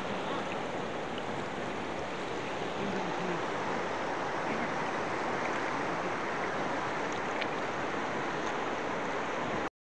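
River water rushing and lapping close to the microphone, a steady rush that stops abruptly just before the end.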